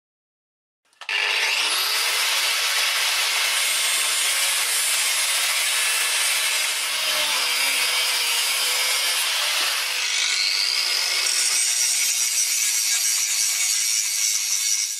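After about a second of silence, an angle grinder spins up with a rising whine and grinds a steel billet, a steady loud rasping hiss of abrasive on metal. About ten seconds in it changes to a cut-off wheel slicing into steel clamped in a vise, with a whine rising in pitch and then holding.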